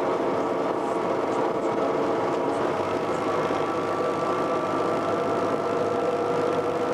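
Lxd2 narrow-gauge diesel locomotive running along the line, heard from beside its cab: a steady engine drone with a few held tones over a rushing noise.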